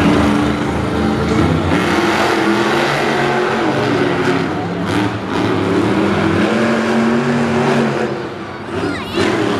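Monster trucks' supercharged V8 engines racing, revving up and down in pitch.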